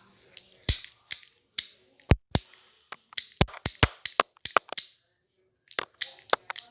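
An irregular series of sharp clicks and knocks, about sixteen in all, with a pause of about a second before the last few.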